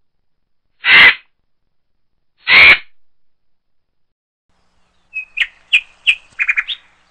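Crow cawing: two loud, harsh caws about a second and a half apart. Near the end comes a quick run of short, high bird chirps.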